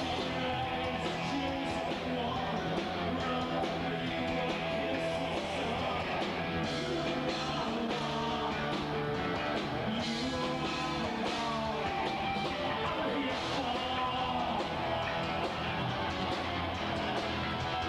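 Rock band playing live: steady guitar-driven rock with singing.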